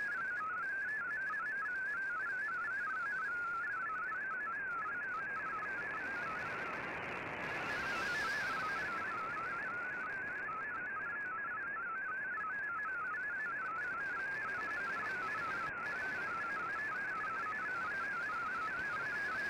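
MFSK32 digital data signal received on an Icom IC-R8600 shortwave receiver: a rapid warble of hopping tones around 1.5 kHz over steady band hiss. About seven to eight seconds in, the tones briefly fade under a swell of hiss.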